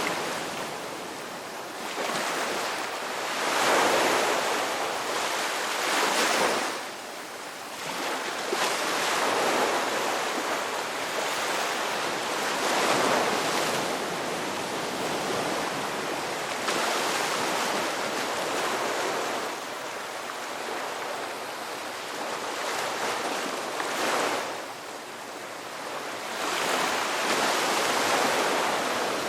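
Sea waves breaking and washing on the shore, the surf swelling and ebbing every few seconds.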